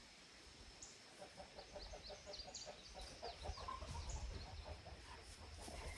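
Chickens clucking faintly in a quick run of short notes, with a few high chirps above them.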